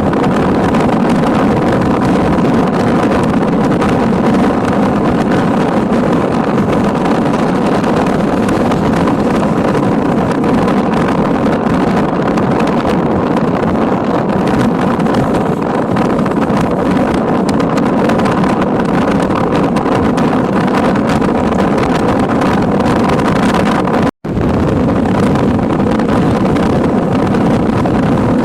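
Strong wind rushing over the microphone from a moving car, mixed with its road and engine noise, loud and steady. It cuts out for an instant late on.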